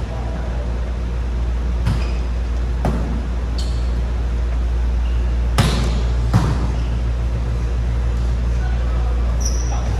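Volleyball rally: a series of sharp hand-on-ball hits, about five in all, the loudest about five and a half seconds in. A steady low hum runs underneath, and short high squeaks of sneakers on the court come near the end.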